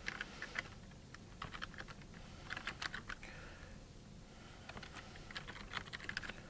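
Computer keyboard being typed on, quick runs of key clicks with short pauses between them, as a word is entered.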